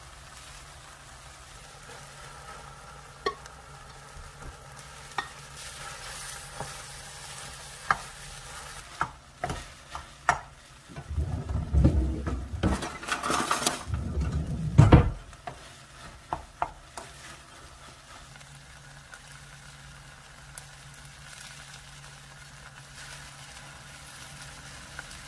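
Kimchi fried rice sizzling in a stainless steel frying pan while a wooden spoon stirs and scrapes it, with scattered sharp taps of the spoon against the pan. For about four seconds near the middle the stirring turns loud and vigorous, with dense clattering as the rice is mixed in. A steady low hum runs underneath.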